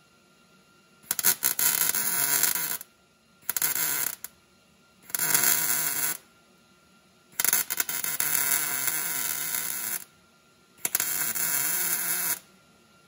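Welding torch laying five short welds on the steel floor framing. Each weld is a burst of hiss and crackle lasting about one to two and a half seconds, starting and stopping abruptly, with short pauses between.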